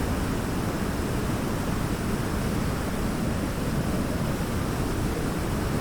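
Waterfall: a steady, even rush of falling water, heaviest in the low range, with no breaks.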